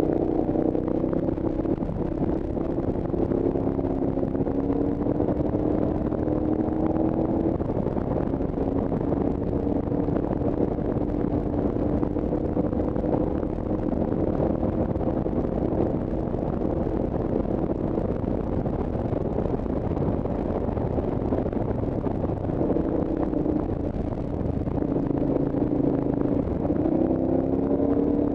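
A vehicle's engine running under way, with a steady hum whose pitch shifts a few times as the revs change, over constant road and wind noise.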